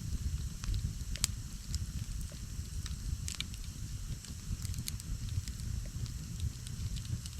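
Campfire crackling, with irregular sharp pops, the loudest about a second in, over a steady low rumble.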